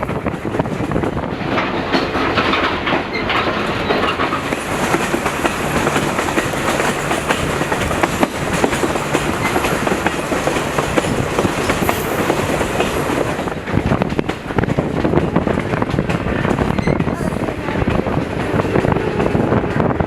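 Passenger train car rolling along the track: steady running noise with the clatter of wheels on the rails.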